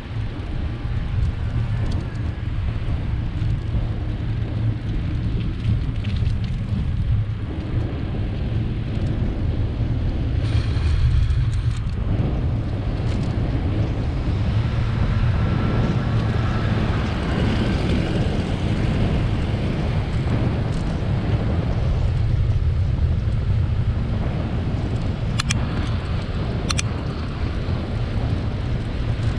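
Wind buffeting the microphone of a bicycle-mounted camera while riding, a steady low rumble. There are a couple of sharp clicks near the end.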